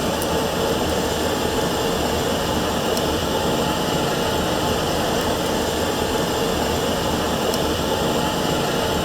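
Steady, loud rushing noise with a low hum.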